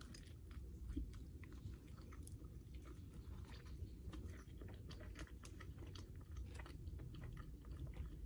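Close-up chewing of a mouthful of Subway bacon ranch melt sandwich, faint, with small wet clicks and soft crunches throughout.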